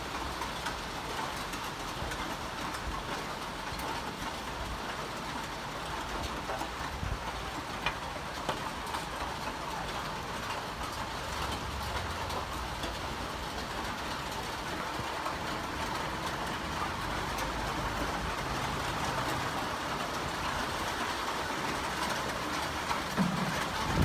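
Steady rain: an even hiss of falling water with a low rumble underneath.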